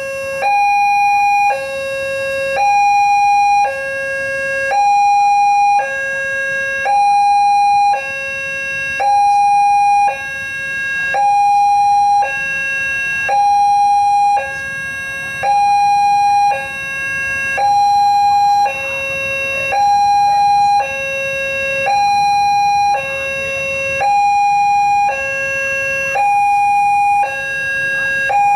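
Electronic railway level-crossing warning siren sounding a steady two-tone alarm: a higher and a lower tone take turns, each lasting under a second, repeating evenly throughout. This is the crossing's signal that a train is approaching.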